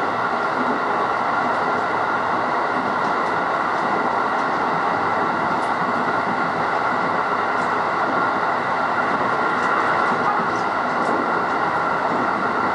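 Electric passenger train running steadily at speed, heard from inside the car: an even rumble of wheels on rail with a steady hum, and a few faint ticks.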